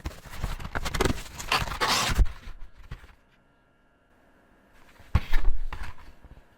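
Felt-tip pen scratching across paper in quick coloring strokes for about three seconds, then quiet, then a second shorter burst of strokes about five seconds in.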